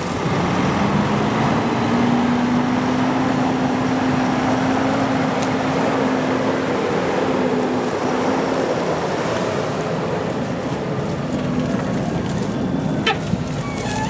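A large engine running amid a steady rushing noise, its hum rising in pitch over the first couple of seconds, then holding steady and fading out partway through.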